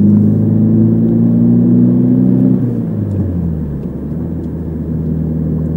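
Car engine and road noise heard from inside the cabin while driving. The engine note rises slightly, then drops to a lower steady note about halfway through.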